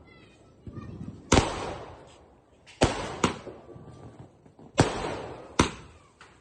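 Multi-shot sky-shot firework cake firing in sequence: about five sharp bangs, some coming in pairs, each followed by a fading crackling hiss.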